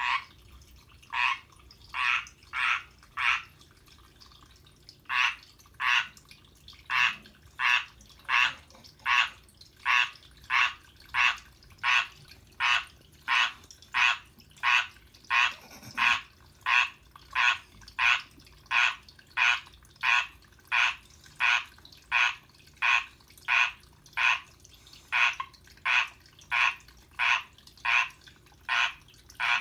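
Male Pacific tree frog giving its courtship call to a female: a long series of short, loud croaks, about one and a half a second, with a brief pause about four seconds in before the series resumes.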